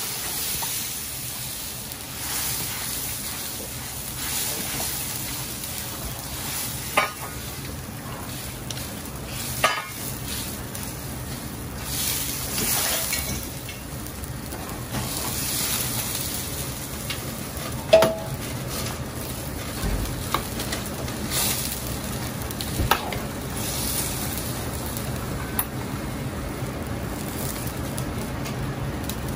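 Vegetables blanching in water boiling in a carbon-steel wok over a gas wok burner: a steady rush of flame and bubbling, broken by a few sharp metal clinks of a utensil against the wok, the loudest about 18 seconds in. Near the end a wire strainer scrapes through the wok, lifting out the cabbage.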